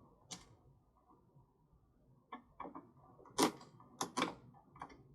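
Hand screwdriver and small screw clicking and tapping against a plastic saddlebag lid and cut-in kit: about eight irregular clicks, most of them in the second half, the loudest about three and a half seconds in.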